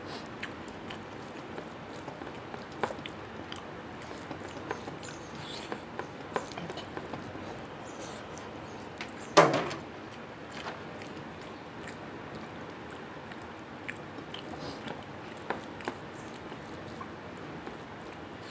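Fingers mixing rice with chicken gravy on a plate, and chewing: soft squishing with small scattered clicks. About halfway through comes a single short, loud vocal sound that falls in pitch.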